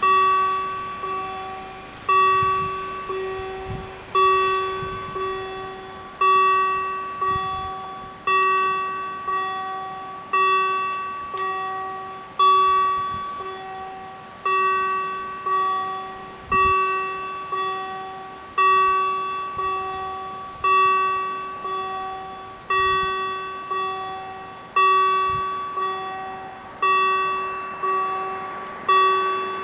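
Level crossing warning bells striking about once a second, each stroke ringing out and fading before the next, while the barriers are down: the warning for an approaching train.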